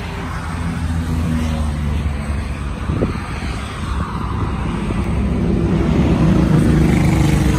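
A motor vehicle engine running steadily, a low hum that grows louder over the second half.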